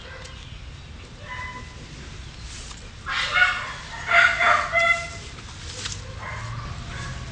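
Dog barking and yelping, with a run of loud, high-pitched barks from about three to five seconds in.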